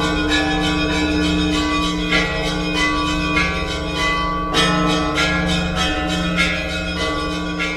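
Russian Orthodox church bells ringing: several bells of different pitches struck in a quick, repeating rhythm over the sustained hum of a deep bell.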